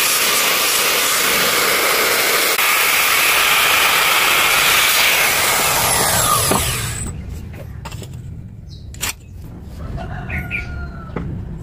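An electric woodworking power tool running at full speed, then switched off about six seconds in, its pitch falling as it winds down. After that come a few light clicks and knocks over a low hum.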